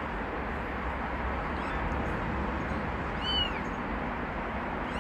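Newborn kitten mewing: a short, high-pitched squeaky mew that rises and falls, about three seconds in, and another at the very end. Under it runs a steady background hiss and low rumble.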